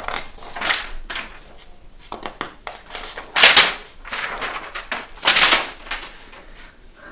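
Sheets of paper rustling and flapping as hand-held signs are handled and flung aside, in several short bursts, the loudest about three and a half seconds in and again about five and a half seconds in.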